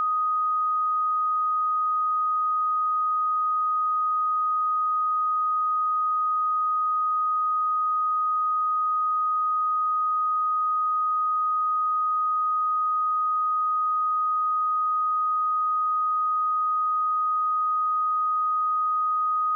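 A pure 1248 Hz sine-wave test tone, one steady high pitch held at constant level with no change.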